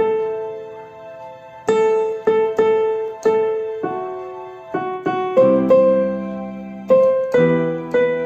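Electronic keyboard with a piano voice playing a slow melody over held chords; each note is struck and fades away.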